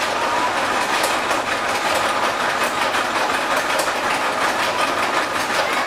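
Roller coaster train running on its track: a steady loud clattering rumble full of rapid irregular clicks.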